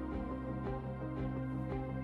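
Instrumental background music with held notes and chord changes.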